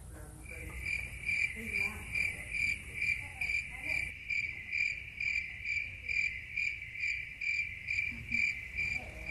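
Cricket chirping, as the comic 'crickets' sound effect: a single high chirp repeated evenly about twice a second, starting about half a second in.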